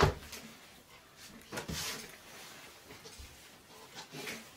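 A thump about as the sound starts, then soft rustling a couple of times: fabric and cushions being handled and moved.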